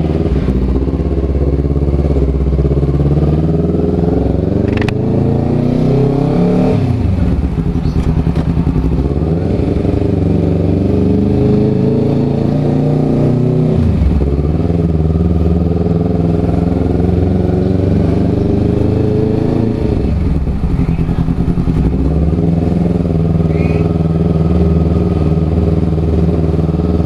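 Honda CBR250RR's parallel-twin engine under way at low speed, its revs climbing and dropping back several times, about 7, 14 and 20 seconds in, then holding steady.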